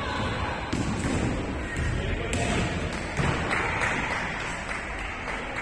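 Basketball game sounds in a gym: a ball bouncing and thudding a few times over a background of crowd voices.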